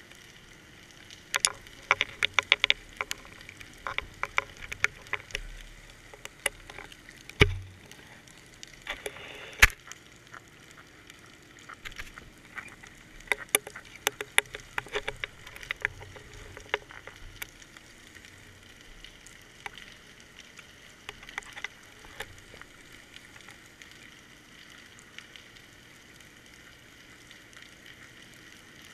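Underwater clicks and knocks picked up through a GoPro's waterproof housing hanging on a fishing line: irregular flurries of sharp ticks over a faint hiss, with one heavier thump about seven and a half seconds in. The clicks thin out over the last several seconds.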